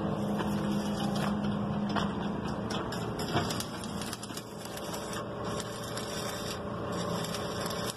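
Electric arc welder crackling as a reinforcement is welded onto a pickup truck's chassis, with a steady hum during the first two seconds.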